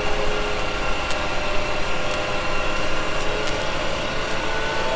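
Steady engine and generator running of a Carbon Robotics G2 laser weeder at work in the field, with several steady whining tones over the drone and a few faint sharp ticks.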